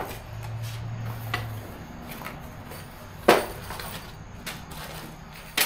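Small metal hardware parts clinking and knocking as a small cardboard box of bimini top fittings is opened and emptied. There are a few sharp clicks, the loudest about three seconds in and another near the end.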